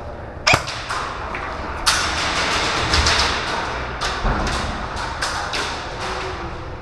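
Irregular sharp clacks and thuds, several close together about three to five seconds in, from airsoft guns firing and BBs striking walls and props.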